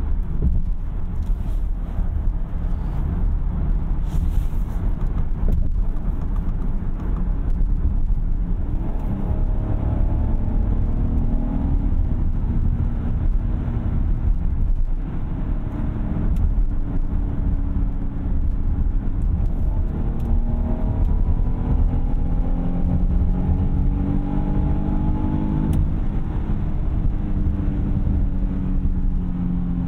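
Cabin noise inside a 2021 Kia Carnival Hi-Limousine minivan at highway speed: a steady road and tyre rumble, with an engine note that rises slowly twice.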